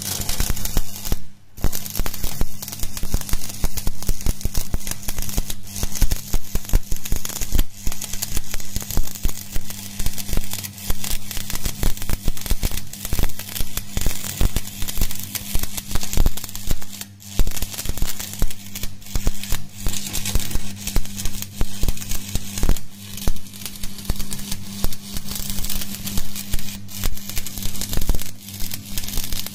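Stick (shielded metal arc) welding with a flux-coated electrode: the arc crackles continuously and irregularly as a steady bead is run along a steel lap joint, over a steady low hum.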